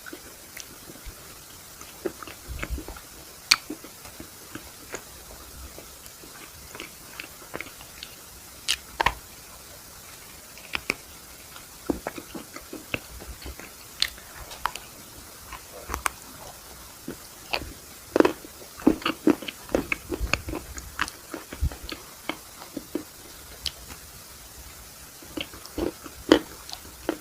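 Close-up eating sounds of someone biting into and chewing an ice cream cone, with irregular sharp crunches and mouth clicks, thicker in the second half.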